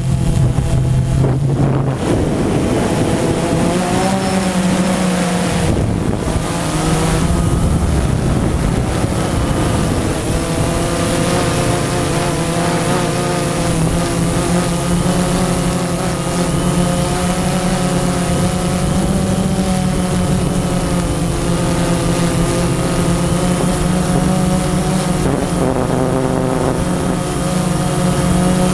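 Camera drone's motors and propellers buzzing steadily in flight, their pitch wavering briefly about four seconds in and shifting again near the end, with some wind on the microphone.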